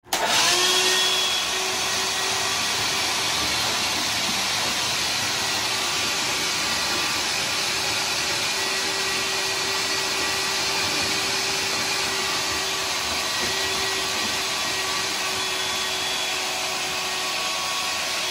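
Ryobi shop vac running steadily, a constant whine over a rush of air, as its hose nozzle sucks floodwater off a wet concrete floor.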